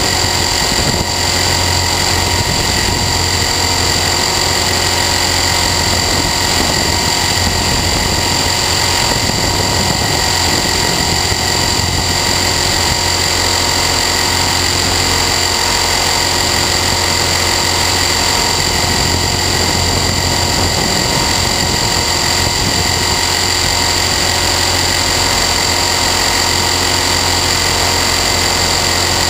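Align T-Rex 450 Sport electric RC helicopter in flight, heard from a camera mounted on it: the brushless motor and drive gears give a steady high whine over the rotor's drone, holding an even pitch throughout.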